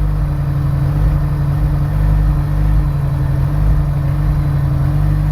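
Honda S2000's four-cylinder engine idling with an uneven beat: a misfire that new spark plugs have not cured, which the owner is chasing to the ignition coils.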